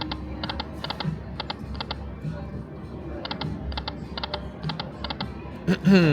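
Dragon Link Autumn Moon slot machine spinning: a steady patter of short, high electronic ticks in pairs and threes, about twice a second, as the reels run and stop, with a loud falling sweep near the end.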